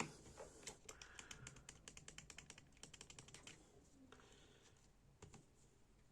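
A quick run of faint light clicks, about eight a second for some three seconds, then a few more scattered clicks near the end.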